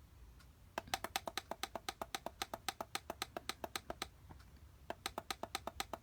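Rapid clicking of a digital calendar clock's menu button being pressed over and over, about seven or eight clicks a second, as the alarm time is stepped up. The clicking pauses briefly just past the middle, then starts again.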